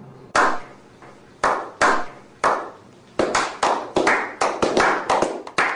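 Slow clap by a small group: single hand claps at first, about a second apart, then coming faster from about three seconds in, several a second, as more of them join in.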